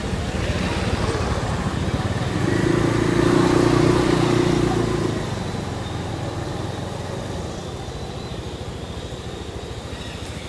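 A motor vehicle's engine going past, getting louder about two and a half seconds in and fading away after about five seconds.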